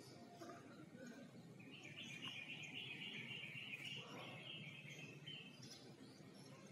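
Faint bird chirping: a rapid chattering run starting about two seconds in and lasting some three and a half seconds, over a low steady background rumble.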